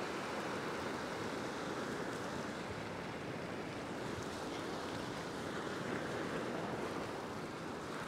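Ocean surf washing steadily over and around a rock ledge.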